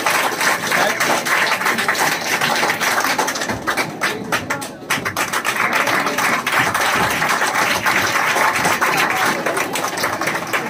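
A roomful of children clapping in continuous applause, easing off briefly about four to five seconds in before picking up again.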